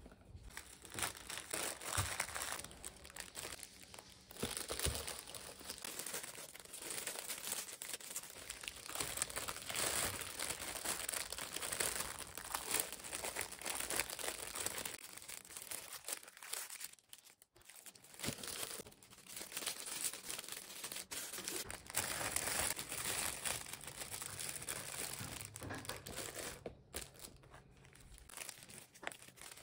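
Thin plastic bag crinkling and rustling as baked pastries are handled and wrapped in it, on and off with a brief lull just past the middle. A few light knocks in the first seconds.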